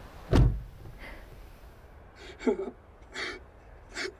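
A heavy thump about half a second in, then three short, sharp gasping breaths from a person, each about three-quarters of a second apart.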